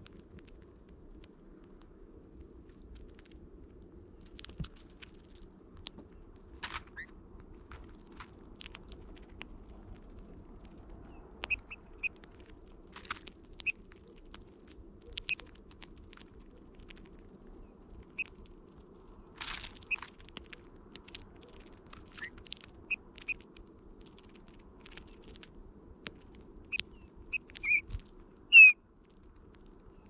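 Eurasian bullfinches feeding at close range: scattered sharp clicks of beaks pecking and cracking seeds, and short soft whistled calls, the loudest one near the end.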